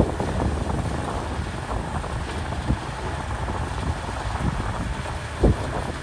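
Komatsu D61PX crawler bulldozer working sand, its diesel engine running steadily with a low rumble, and a few short knocks, the loudest near the end.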